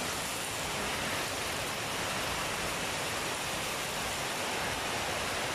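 Thin rempeyek batter of flour and peanuts frying in oil in a small pan: a steady sizzling hiss.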